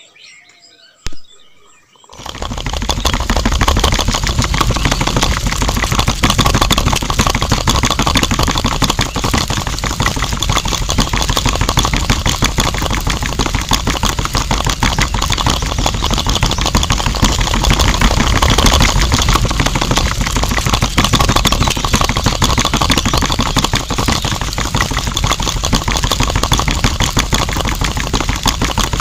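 A click about a second in, then a small electric motor in a homemade miniature grinding machine starts and runs steadily with a buzzing rattle, turning its drum.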